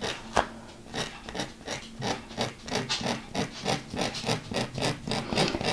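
Scalpel blade scratching short scoring cuts into a creased diamond-painting canvas: a string of quick scratches, scattered at first, then settling to about four a second.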